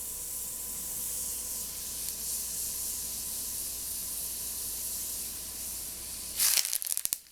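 Food frying in hot oil: a steady high sizzle, swelling into a louder burst of crackling about six and a half seconds in, then stopping.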